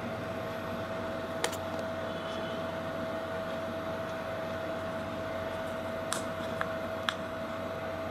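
Steady background hum with one constant mid-pitched tone running through it, and a few faint short clicks: one about a second and a half in and three more later on.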